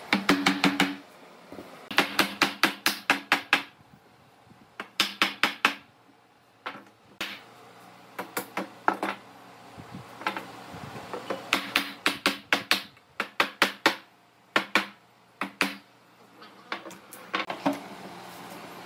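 Hammering in a workshop: runs of quick, sharp blows, about five a second, with short pauses between the runs.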